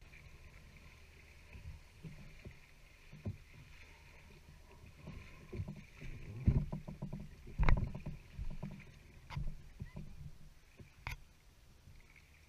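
Wooden canoe moving into reedy shallows: water lapping against the hull, with irregular knocks and bumps on the wood, the loudest a pair of low thumps in the middle.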